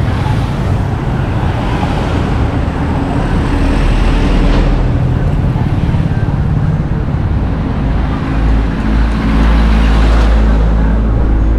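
Road traffic: vehicle engines running and passing close by, with a heavier, deeper engine rumble building in the second half.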